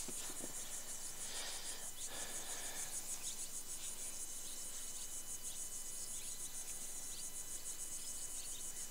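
Crickets chirping in a steady, fast-pulsing high chorus, with a few faint short chirps over it.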